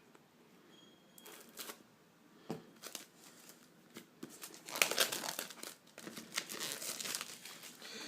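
Packaging being handled and unwrapped: a few light clicks, then from about halfway a dense run of crinkling and crackling as the wrapping is torn and crumpled.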